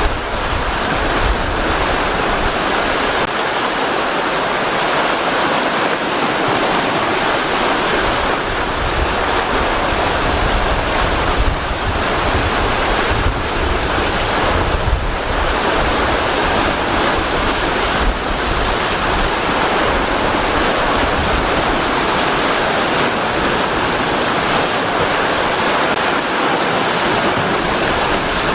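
Waves breaking and strong wind blowing on the microphone: a steady rushing noise with uneven low rumbles from gusts hitting the mic.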